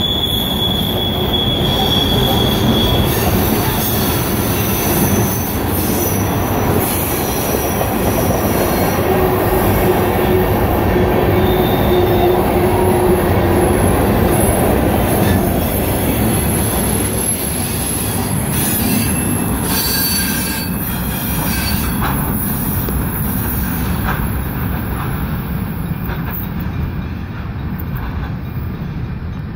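Freight train cars rolling past on steel rails: a loud, steady rumble and clatter of wheels, with thin high-pitched wheel squeals coming and going over it. The sound eases off near the end as the last cars pass and the train moves away.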